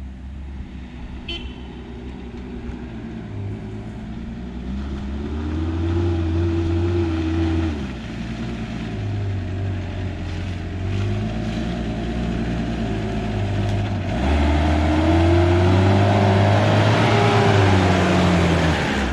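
Four-wheel-drive ute's engine revving under load as it climbs a steep dirt track, the revs rising and easing off three times and getting louder as it draws near, with tyre noise on the dirt at its loudest near the end.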